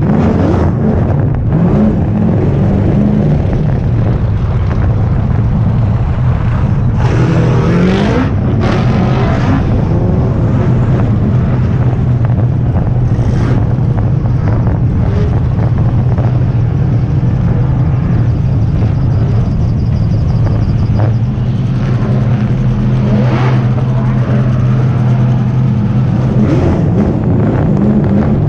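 BMW E46 drift car's engine running steadily, heard from a hood-mounted camera as the car drives, with a brief rise in pitch about eight seconds in.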